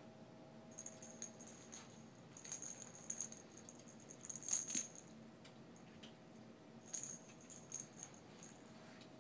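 Small bell inside a cat's toy ball jingling in short bursts as the cat bats and mouths it, in several clusters with pauses between.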